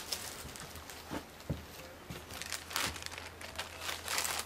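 Irregular rustling and crinkling noises, loudest in a few short bursts, with a couple of soft knocks under a steady low hum.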